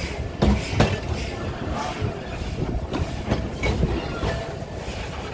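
Narrow-gauge train wagons rolling along the track: a steady low rumble with sharp, unevenly spaced clacks and knocks, about two a second, from the wheels running over the rail joints.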